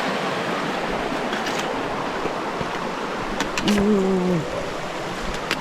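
Ouachita River flowing: a steady rush of moving water. About three and a half seconds in, a person gives a short hum that dips at its end, with a few light clicks around it.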